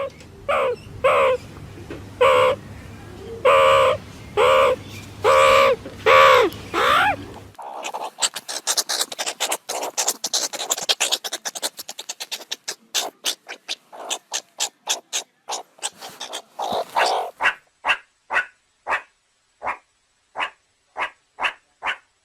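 Meerkat calls: a run of short pitched calls, about one a second, then a long stretch of fast chattering clicks and chirps, then short sharp calls repeating about twice a second.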